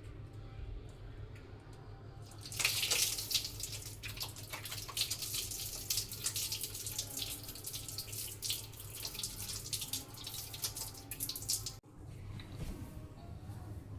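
Water running from a tap into a sink, splashing over hands being washed. It starts about two and a half seconds in and cuts off suddenly near the end.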